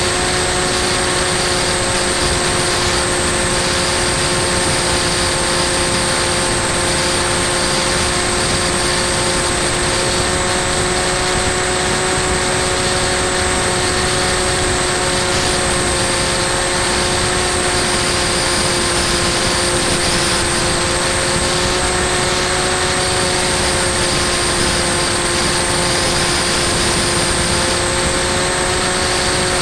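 Bixler 2 foam RC plane's electric pusher motor and propeller running at steady throttle, a constant whine with several held tones, heard from its onboard camera over a rush of air.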